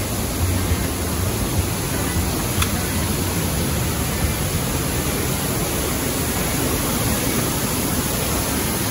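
Steady rushing noise of a boat under way, wind and water rushing with a low rumble underneath.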